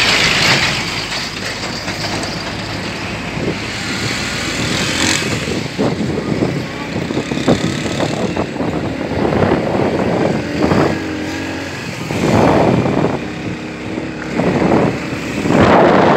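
Riding in an open vehicle on a rough road: engine running and wind rushing past, with a steady din that swells louder a few times.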